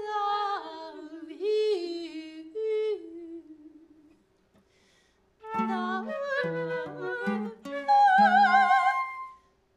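Improvised music: a woman's voice sings sliding, wordless notes. After a brief pause, plucked guitar notes come in, and the voice ends on a high held note with wide vibrato.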